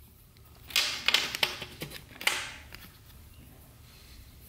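A handful of light clicks and taps of small metal transmission parts and hand tools being handled over a 4L80E valve body, all within the first two and a half seconds or so.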